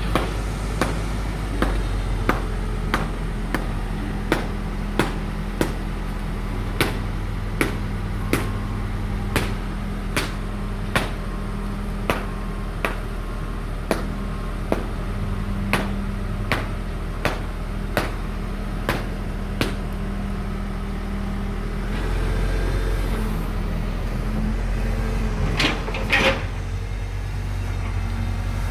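JCB digger's diesel engine running steadily under a train of sharp, evenly spaced knocks, about three every two seconds, as the machine breaks up a concrete water-channel box. After about twenty seconds the knocks stop and the engine runs on, with a brief louder clatter near the end.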